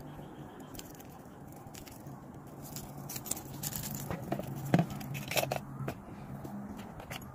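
Close rustling and scraping with scattered sharp clicks, busiest and loudest about halfway through, over a faint steady low hum.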